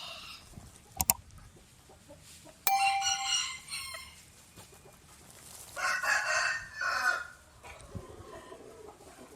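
A tiny rooster crowing twice, about three seconds apart, with a sharp click about a second in.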